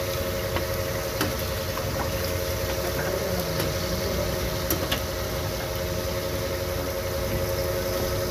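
Chapli kababs sizzling in a wide pan of bubbling hot oil, with a few sharp clicks of spatter and the spatula on the pan. A steady engine-like hum runs underneath.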